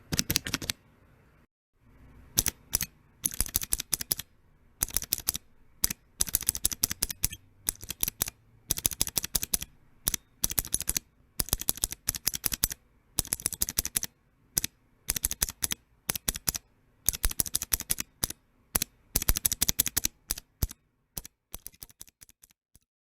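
Keys of a mechanical keyboard with Cherry MX switches typed in quick bursts of clicks, with short pauses between bursts, growing fainter near the end.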